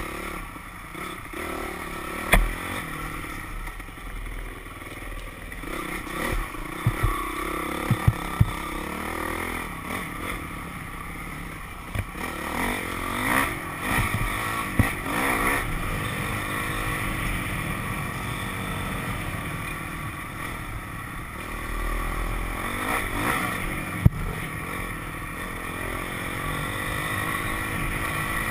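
Dirt bike engine running under way, its revs rising and falling with the throttle, with a few sharp knocks and clatters from the bike over the rough trail.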